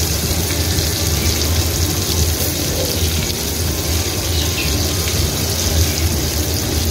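Marinated chicken pieces deep-frying in hot oil in a kadai, a steady sizzle. The pieces are being fried only to about three-quarters done.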